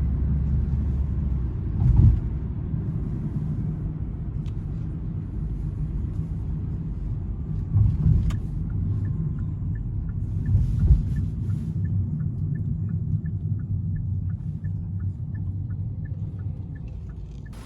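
Low, steady rumble of a car in motion, with a few thumps. About halfway through, a regular light ticking starts, roughly two to three ticks a second.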